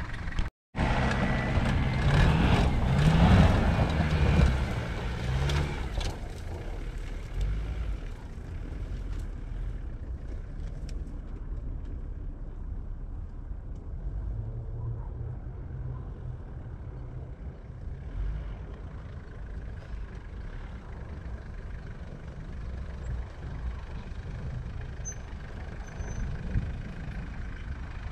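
Mitsubishi Delica's 2.8-litre diesel engine revving hard for about five seconds, its pitch rising and falling as the van accelerates, then running more quietly and steadily, picking up again near the end as it drives up a dirt slope.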